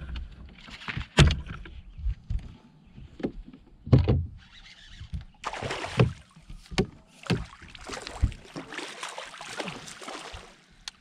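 A hooked fish thrashing and splashing at the surface beside the boat as it is brought to the landing net, with a string of sharp knocks against the boat. The splashing is heaviest through the second half.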